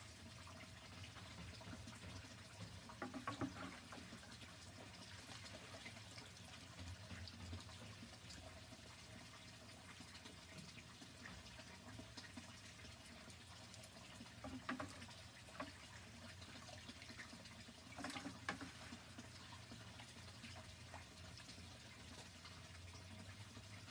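Faint trickling and dripping water, with three brief louder handling sounds spread through it.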